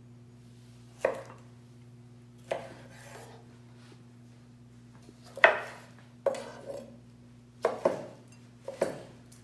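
Chef's knives cutting tomatoes on wooden cutting boards: irregular sharp knocks of the blade against the board, about seven in all, some a second or more apart and a couple close together near the end, over a steady low hum.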